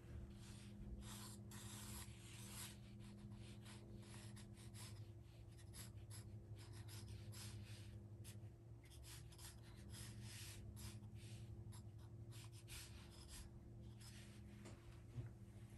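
Pencil sketching on paper: faint, quick scratchy strokes, many in a row, over a low steady hum.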